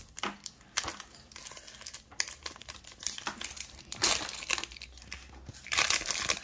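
Foil wrapper of a Pokémon TCG booster pack crinkling as it is torn and pulled open by hand. The crackles come irregularly, with louder bursts about four seconds in and near the end.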